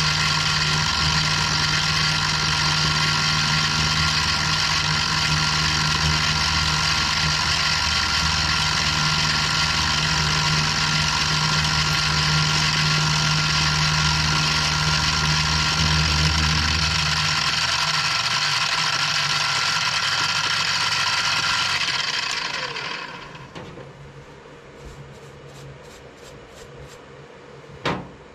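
Benchtop milling machine running steadily with a whine, its end mill cutting a slot into a knife-handle block. The low hum drops out about two-thirds of the way through, then the motor is switched off and winds down. A single sharp knock comes near the end.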